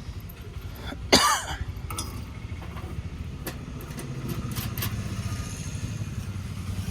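A vehicle engine running steadily while on the move, a low rumble throughout. About a second in there is one brief, loud, sharp sound, and a few light clicks follow.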